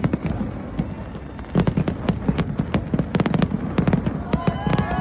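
Fireworks going off: a quick, irregular run of sharp bangs and crackles that grows denser about a second and a half in, with several steady whistling tones starting near the end.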